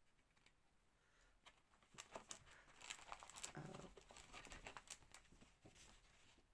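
Faint rustles and small clicks of cards and cardboard packaging being handled. They begin about two seconds in, after near silence.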